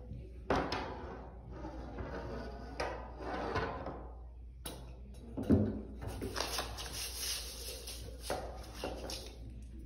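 An under-the-door lever opener tool scraping and rubbing against a door as it is pushed under and worked up toward the lever. Several knocks come in between, the loudest about five and a half seconds in.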